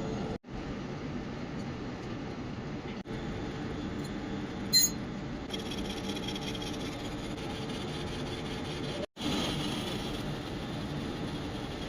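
Steady mechanical drone of workshop machinery that cuts out briefly three times, with one sharp metallic clink about five seconds in.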